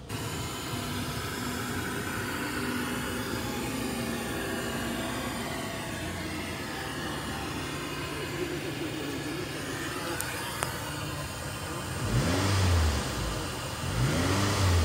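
Toyota RAV4's 2.4-litre four-cylinder (2AZ-FE) engine idling steadily, heard from inside the cabin. It is revved briefly twice near the end, each blip rising and falling in pitch.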